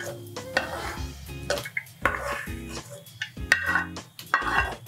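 Steel spoon scraping and clinking against a metal pan and the rim of a steel mixer jar while scooping fried onion, tomato and peanuts, with several sharp clinks.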